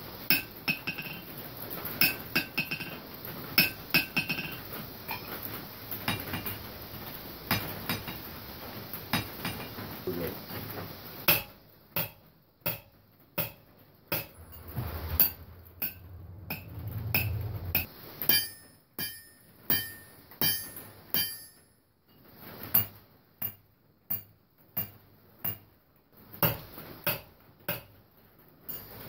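Hand hammer striking an anvil face in a ring test, each blow a sharp metallic clink with a ringing tone after it. About 11 seconds in, the sound cuts to a second anvil on a different stand, struck about once a second.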